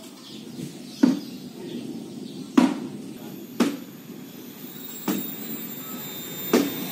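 Five sharp knocks, about one to one and a half seconds apart, over a steady background hiss.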